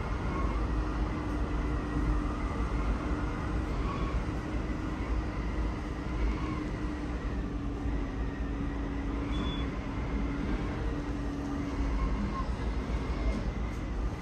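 Strong typhoon wind and heavy rain: a steady rushing noise, with the wind buffeting the microphone in a low rumble. A faint wavering tone runs underneath.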